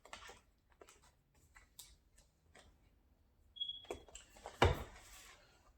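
Packaging of a gimbal box being handled and opened: scattered small clicks and rustles, a brief high squeak, then a louder burst of rustling with a single thump about four and a half seconds in.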